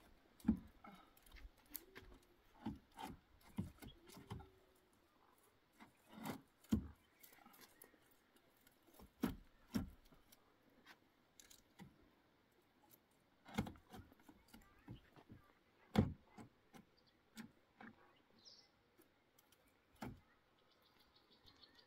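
Scattered faint knocks and taps at irregular intervals, with some light rubbing between them.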